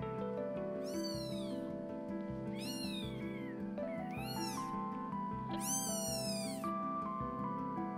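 A newborn kitten mewing, four thin, high-pitched cries, the last the longest at about a second. It is lying apart from the rest of the litter and calling out.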